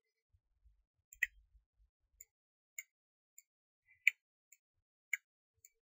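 Computer mouse clicking: about eight short, sharp single clicks at irregular intervals, the loudest a little over a second in and about four seconds in.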